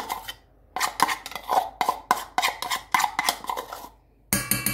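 A spoon scraping and tapping quickly against a small bowl as crushed garlic is knocked out of it onto mashed chickpeas. Near the end comes a louder clink that rings on briefly.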